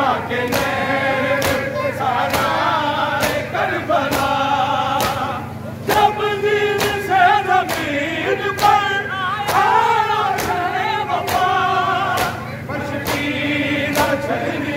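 Men chanting a noha (Shia lament) together in a wavering melody, with rhythmic matam chest-beating slaps keeping time a little more than once a second.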